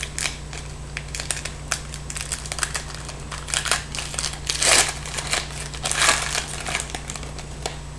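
A 2010-11 Artifacts hockey card pack being opened by hand: the wrapper crinkles and crackles in many small snaps, with two louder rustles about halfway through and again a second later as it is torn and the cards are pulled out.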